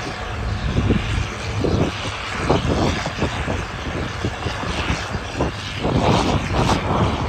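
Heavy vehicle engine noise, with wind rumbling and gusting on the microphone.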